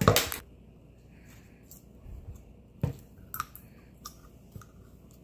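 Clear blue Elmer's glue slime being pressed and poked with fingers in a jar, making sticky squelching pops and clicks. The loudest is a crackly squelch right at the start; a sharp pop comes just before three seconds in, followed by a few softer clicks.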